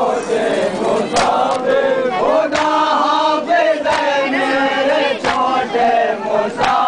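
A crowd of male Shia mourners chanting together in unison. A sharp strike in time with the chant comes a little over a second apart.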